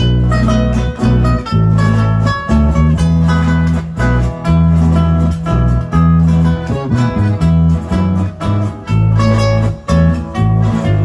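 Instrumental Nicaraguan norteña mazurka: a Hohner piano accordion plays the melody over strummed guitar and a deep bass line that moves in steady, rhythmic steps.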